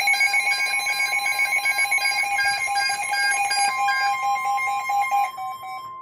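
Several NOAA weather radio receivers sounding their electronic alert alarms for an incoming severe thunderstorm warning: overlapping rapid beeping, about four beeps a second, with a steady high tone growing louder about halfway through. The beeping stops near the end, leaving the steady tone.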